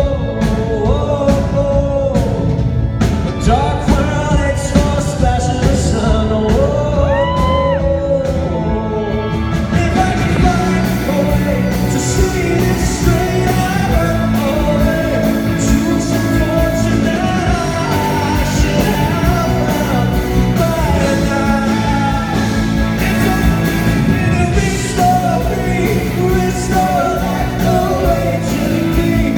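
A male singer and a rock band performing a song live in a large hall. The accompaniment is sparser at first, and the full band comes in about ten seconds in.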